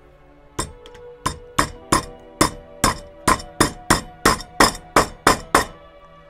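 About fifteen quick hammer blows, roughly three a second, each with a short metallic ring, starting about half a second in and stopping near the end: a hammer tapping a toothed push-on retaining part onto the wheel-and-leg assembly of a Weber kettle grill so that it grips on its teeth.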